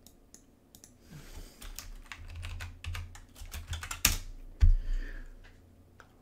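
Typing on a computer keyboard: a quick run of keystroke clicks from about a second in until about five seconds in, with a heavier thump about four and a half seconds in.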